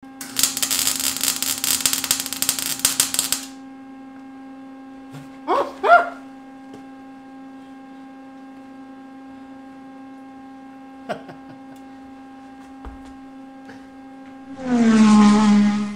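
Stick welder arc crackling and spitting for about three and a half seconds as tabs are welded on, then stopping, leaving a steady electrical hum with a few small clicks. A loud pitched sound comes in briefly near the end.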